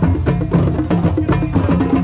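Drum circle: many djembes and stick-played dunun bass drums going together in a fast, steady, interlocking rhythm.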